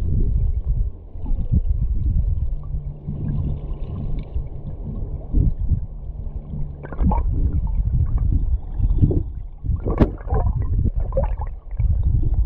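Low, muffled rumble of river current heard from underwater, with several sharp knocks, the loudest about ten seconds in.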